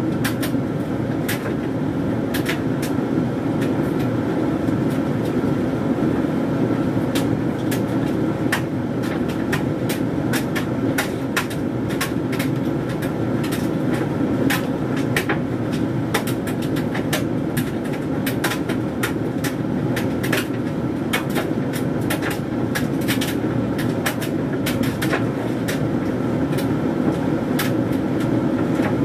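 Hoover Dynamic Mega 10kg condenser tumble dryer running mid-cycle on a load of synthetics: a steady hum from the turning drum and motor, with frequent irregular clicks and taps from the tumbling load.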